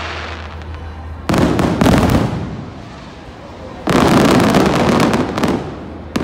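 Aerial fireworks going off: a loud burst about a second in and another about four seconds in, each followed by a second or so of dense crackling from crackle stars, with a sharp pop near the end.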